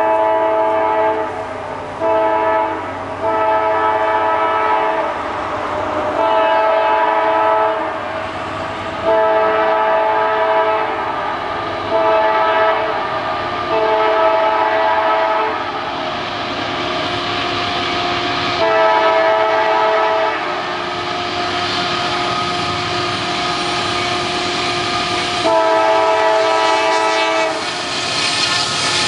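Approaching freight locomotive's multi-chime air horn sounding a long series of blasts, mostly long ones of one to two seconds with short gaps, about ten in all. The train's rumble grows louder toward the end as the locomotive arrives.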